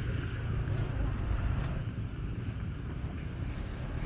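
Wind rumbling on the microphone over a steady outdoor background hiss.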